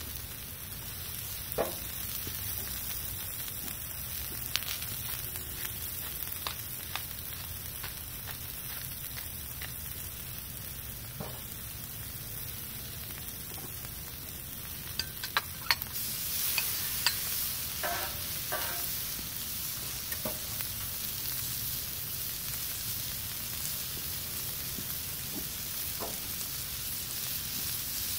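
Sliced peppers and onions sizzling steadily on a hot Blackstone flat-top griddle, with scattered clicks of the metal spatulas. The sizzle gets louder about halfway through as more food goes onto the griddle.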